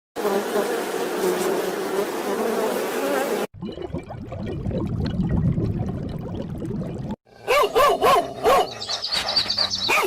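A run of short animal sound clips, each cut off abruptly: a steady buzz, then a rougher rumbling stretch, then quick repeated calls several times a second.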